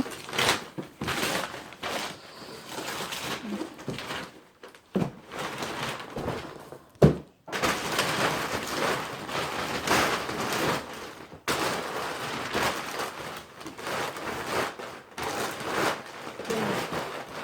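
Rustling, tearing and knocking of a wrapped gift box being unwrapped and opened by hand, with a sharp knock about seven seconds in.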